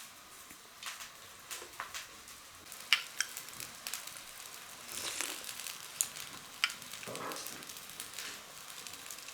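A spoon clinking sharply against a bowl a few times, between soft sounds of eating from the bowl of steamed pear soup.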